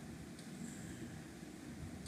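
Faint steady background noise with a low rumble, and a faint click about half a second in and another near the end.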